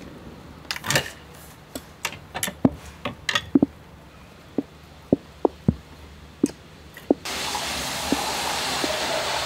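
A dozen or so sharp wooden knocks and clacks at uneven spacing, some ringing briefly, as the pole of a shop's noren curtain is handled and set in place. About seven seconds in they give way suddenly to a steady background hiss.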